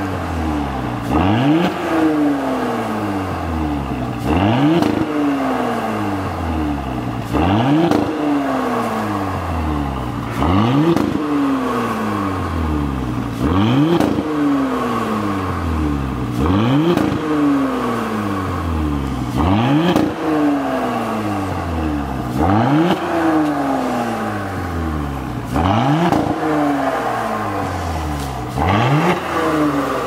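Porsche Cayenne 3.0T's turbocharged V6 breathing through a Fi Exhaust valvetronic performance exhaust, blipped from idle about ten times at a steady pace of one every three seconds or so. Each blip climbs quickly and then falls back slowly to idle.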